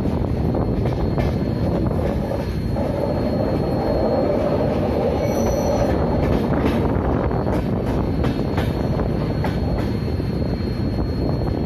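Humsafar Express passenger train running through a station, heard from beside its coach: a steady rumble of wheels on the rails, with a louder whine for a few seconds in the middle and scattered clicks as the wheels cross rail joints and points.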